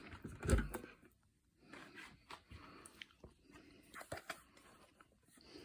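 Scattered plastic clicks and rustles of handling, with a louder thump about half a second in; no motor running.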